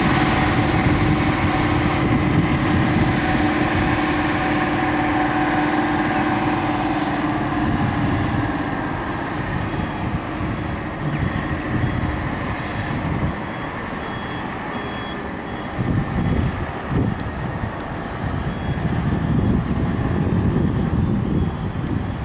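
Mercedes-Benz Actros truck engine running: a steady whine over a low rumble for the first several seconds, after which the whine fades and an uneven low rumble goes on, slightly quieter.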